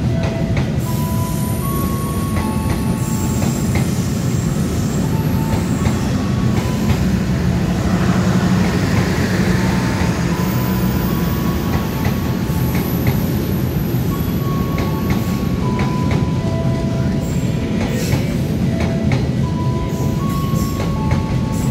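Long-distance passenger train of stainless-steel coaches running past on the rails: a steady loud rumble of wheels on rail, with short wheel squeals at changing pitches and clacks of the wheels over rail joints, more of them near the end.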